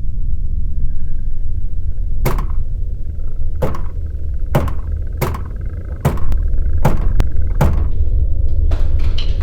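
A steady low rumble with a faint high tone above it. From about two seconds in, a series of sharp knocks sounds at irregular intervals, coming faster near the end.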